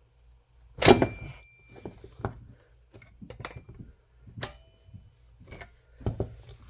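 Metal tools clanking against a chainsaw's clutch while it is worked loose: one sharp metallic clank with a brief ring about a second in, then several lighter knocks and clicks.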